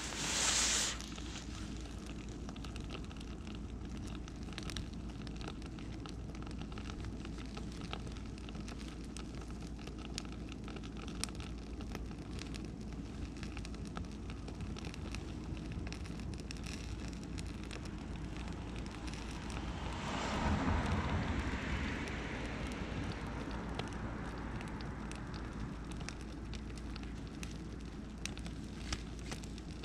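Bonfire of beech and oak wood burning, crackling steadily with scattered small pops. A short hiss right at the start, and a louder rushing swell about twenty seconds in that lasts a few seconds.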